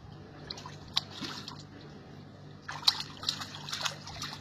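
Water splashing as a small child slaps it with both hands in a large metal tub. There are a few scattered splashes at first, then a quicker run of louder ones in the second half.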